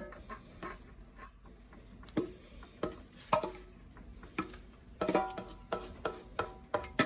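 A spoon scraping and knocking in a pot as ground split peas are stirred. About five seconds in, music with quick drum and plucked-string hits starts playing.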